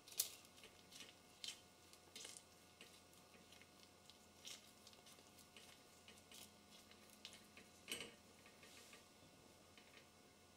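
Silicone spatula scraping and tapping against a pan while stirring a thick almond-flour and sugar-syrup mixture: scattered short, faint strokes over near silence, the sharpest one just at the start.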